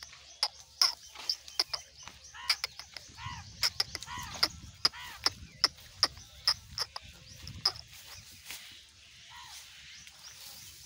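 Goats tearing and cropping grass, a quick irregular run of crisp snaps and rips as they pull at the blades.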